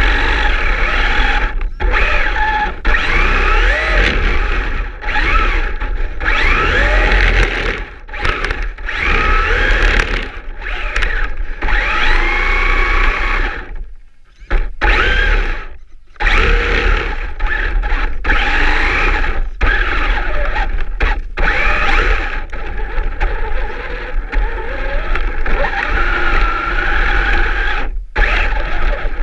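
Traxxas Slash 4x4 RC truck's electric motor and drivetrain whining in bursts, the pitch rising and falling with the throttle, while it pushes snow with a cardboard plow blade. The sound drops away for about two seconds midway.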